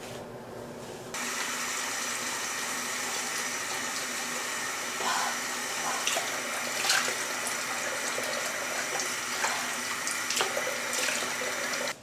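Bathroom tap running steadily into a vessel sink basin, turned on about a second in, with short splashes of water as hands wash a face under the stream.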